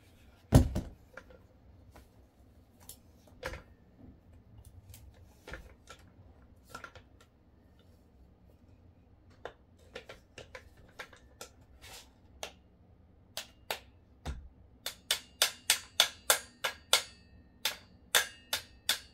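Metal parts of an AR-style rifle clicking and knocking as it is handled and taken apart. There is a loud knock about half a second in and scattered clicks after it. Near the end comes a quick run of sharp, slightly ringing metal clicks, about three a second.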